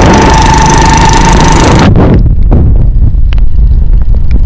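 Motorcycle on the move, with wind blasting the microphone over the engine and a steady whine. About two seconds in the sound changes abruptly to a low wind rumble with scattered ticks.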